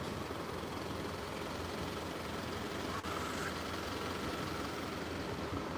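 Steady city street background noise, a low even hum with no single source standing out, and one faint click about three seconds in.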